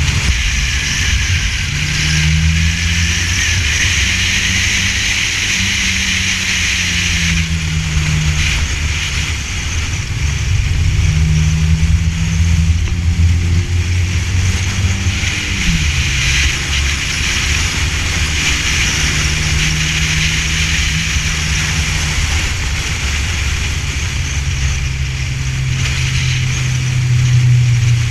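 Small car engine (a Ford Festiva) racing, its pitch rising and falling as it accelerates and eases off, over a steady hiss of tyre and wind noise.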